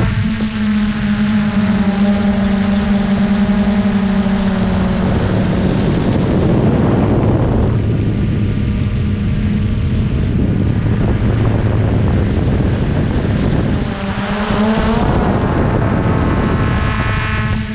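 Quadcopter drone's electric motors and propellers whirring steadily, heard from the camera on board, over a rush of air. Their pitch shifts about five seconds in and again around fourteen seconds.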